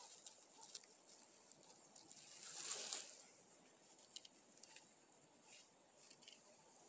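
Gloved hands handling and pulling apart Korean pine cones: faint rustling and crackling of cone scales and dry needles, with scattered small clicks and a louder rustle about two and a half seconds in.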